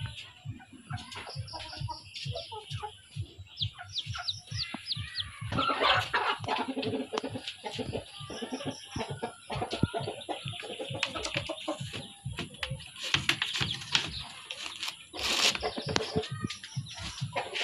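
A brood of Rhode Island Red chicks peeping continually in short high calls, with scattered knocks and a brief louder rustle about fifteen seconds in.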